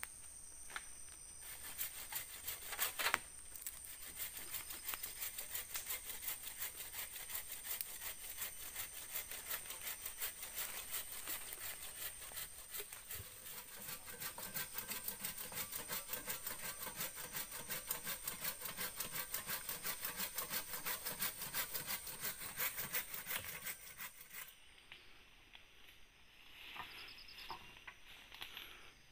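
Hand saw cutting through wood with fast, even back-and-forth strokes, stopping a few seconds before the end.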